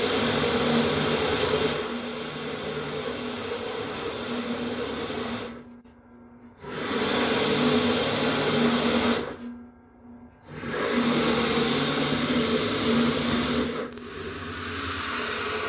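Drill press running at low speed while a 1.5 inch Forstner bit bores shallow holes into cherry hardwood, louder while the bit is cutting. The sound drops out briefly twice, about six and ten seconds in.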